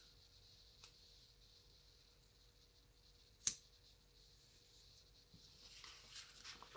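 Faint handling of paper and stickers on a planner page: a single sharp tap about halfway through, then light paper rustling near the end as the sticker sheet is moved.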